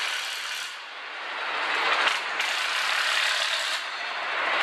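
Factory-floor din of an engine assembly line: a continuous mechanical noise without a clear pitch, its character changing abruptly a few times.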